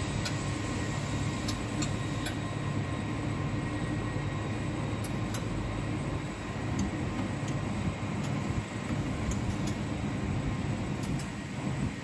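Rubber extrusion production line running: a steady mechanical hum from the extruder and its drive, with a few faint, irregular sharp ticks.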